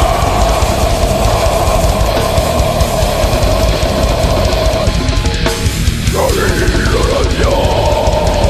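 Loud heavy rock music: a drum kit beating steadily under distorted electric guitar. A long held lead note bends up and down about six seconds in.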